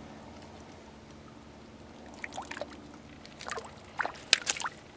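A small trout being unhooked by hand on a gravel bank: a faint steady hum, then from about two seconds in a scatter of short scrapes and clicks as the fish and hook are worked, the sharpest about four seconds in.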